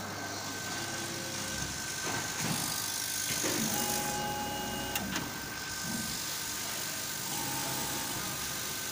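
CO2 laser cutter running, with a steady hum and a constant high tone. Short whining tones come from its stepper motors as the laser head moves across the bed, and there is a sharp click about five seconds in.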